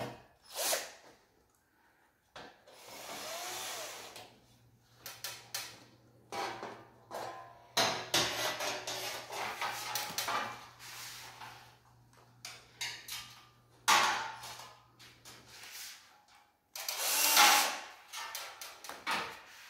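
Cordless drill-driver running in repeated short bursts against the steel mounting plate of a split air conditioner's indoor unit, fixing the plate to the wall, with clicks and knocks between the bursts. The loudest bursts come around the middle and shortly before the end.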